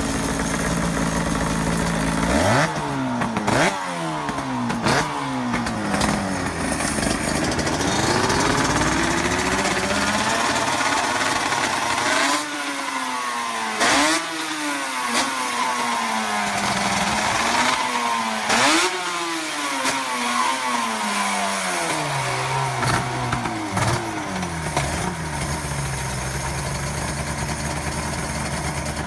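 Suter MMX 500's 576 cc fuel-injected two-stroke V4, breathing through four Akrapovic titanium expansion chambers, blipped again and again from idle, its pitch sweeping up and falling back with several sharp cracks on the revs. It settles back to a steady idle near the end.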